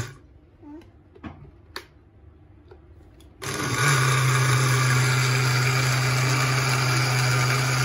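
Countertop blender motor cutting off, a few sharp clicks during a pause of about three seconds, then the motor starting again about three and a half seconds in and running steadily as it blends a banana-and-milk smoothie.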